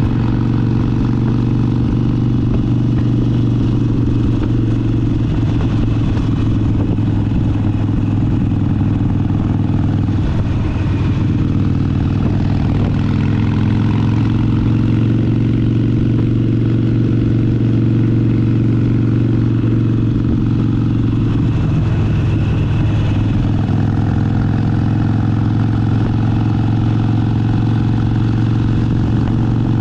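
Harley-Davidson Sportster 72's air-cooled 1200 cc V-twin running at a steady cruise, its engine note holding nearly constant.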